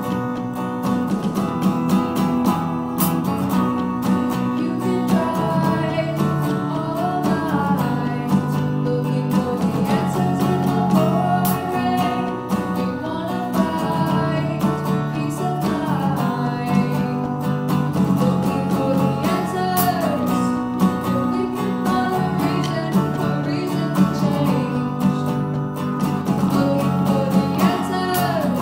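A live rock band playing: electric guitar, electric bass and drum kit, with women singing over it.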